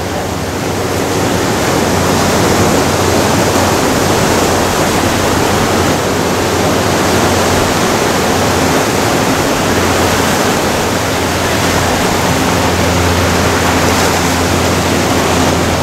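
Ocean surf breaking on a rocky shore: a loud, steady rush of waves and foam.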